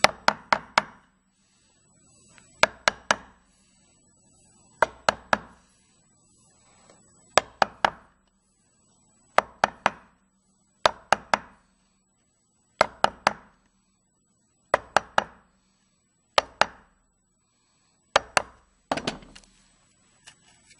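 Wood chisel tapped into the edge of a wooden box to outline a hinge mortise: sharp taps in quick groups of about three, a group roughly every two seconds.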